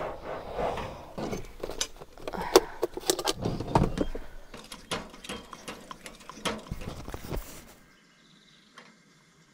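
Metal clicks, clinks and small knocks from a coffee pot being handled on a two-burner camp stove, a quick irregular run that stops about eight seconds in.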